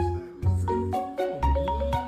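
Background music: a bouncy tune of short pitched notes over a steady bass beat about twice a second.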